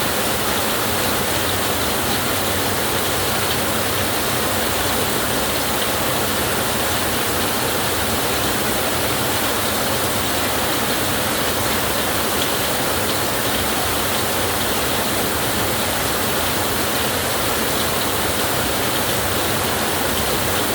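Heavy rain falling steadily on a tin roof, an even, unbroken rush with no thunder.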